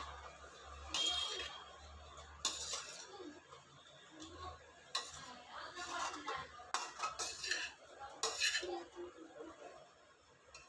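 A spoon clinking and scraping against a bowl in short, irregular strokes, stirring a mix of boiled black chickpeas and chopped vegetables.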